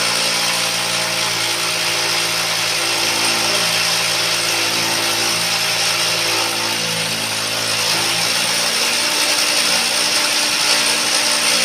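Electric power drill running continuously, boring holes into concrete. Its motor note shifts about two-thirds of the way through.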